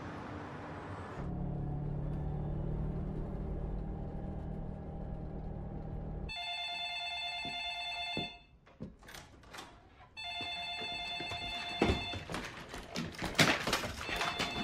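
Wall-mounted landline telephone ringing: two rings of about two seconds each, a couple of seconds apart, with a third just starting near the end. Knocks and clatter come between the rings and toward the end as the phone is reached for. A low steady hum fills the first few seconds before the ringing.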